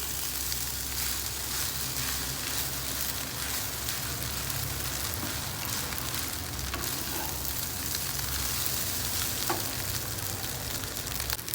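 Fried rice sizzling in a hot pan as it is stirred continuously, with a steady low hum underneath.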